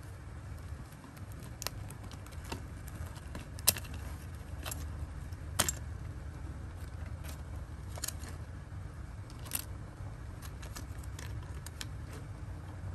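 Light metallic clicks and taps from small parts and tools of a diecast model car being handled, irregular and spaced about a second apart, the loudest about a third of the way in and near the middle, over a steady low hum.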